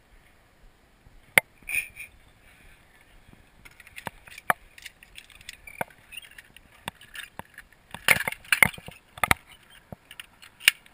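Metal zip-line trolley, carabiners and handlebar being handled and clipped up: a run of sharp clinks and clacks, sparse at first and thickest about eight seconds in.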